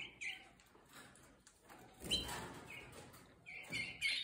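Timbrado español canaries giving short, high chirping calls, a few scattered ones and then several in quick succession near the end.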